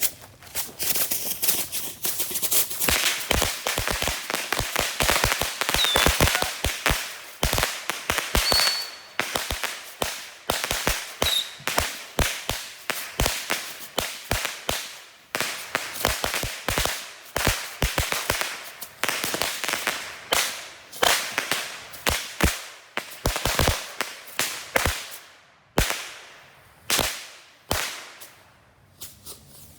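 A big volley of bottle rockets going off: rapid sharp bangs and cracks, several a second, with a few short whistles in the first dozen seconds, thinning out to scattered single bangs near the end.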